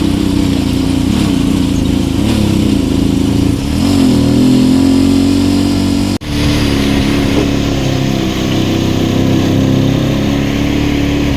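Viar Karya 300 three-wheeled cargo motorcycle's engine running under load while climbing a rough macadam hill road, its pitch rising and falling two to four seconds in. About six seconds in, the sound breaks off very briefly and then carries on.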